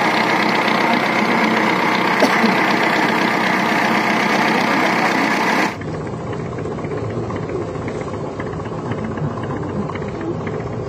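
Small fishing boat's engine running steadily. A little over halfway through, the sound drops in level and turns duller.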